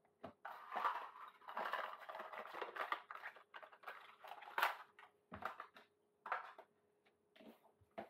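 Hands handling and setting down small objects: irregular rustling and clicks with a few light clatters, stopping after about six and a half seconds, over a faint steady hum.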